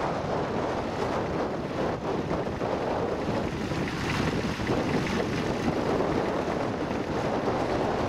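Small vintage Fordson tractor engine running steadily as it pulls a plough through grass, mixed with wind buffeting the microphone.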